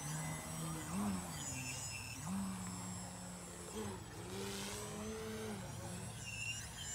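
Radio-controlled Ultimate AMR 60 aerobatic biplane's electric motor and propeller, its pitch rising and falling as the throttle changes during manoeuvres. About four seconds in, the plane passes close with a whoosh.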